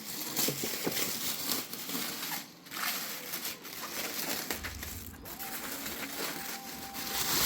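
Packaging crinkling and rustling as it is handled, in uneven spurts with two short pauses and a louder stretch near the end.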